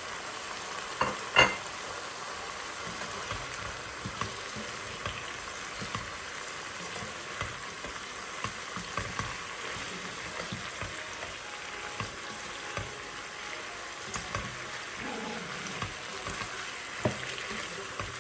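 Chicken curry sizzling in a pan while it is stirred, a spatula clicking and scraping against the pan, with one sharp knock about a second and a half in.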